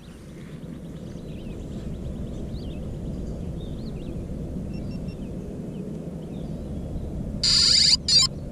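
Low steady rumble of wind on the microphone with small birds chirping here and there, then near the end a loud electronic tone from the grounded drone, sounding twice in quick succession.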